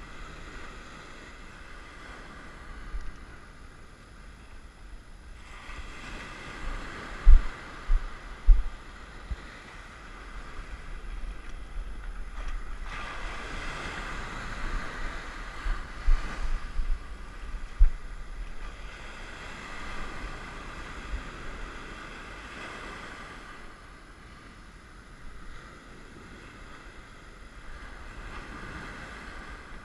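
Ocean surf breaking and washing up the beach, its hiss swelling and fading with each wave. Wind buffets the microphone in several low thumps, the loudest a few seconds in and again about two-thirds of the way through.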